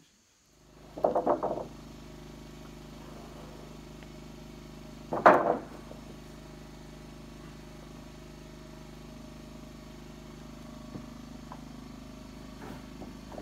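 Steady engine hum running in the background. Over it, a quick rattle of wooden knocks about a second in and a single loud knock about five seconds in, as lumber boards are handled and knock together.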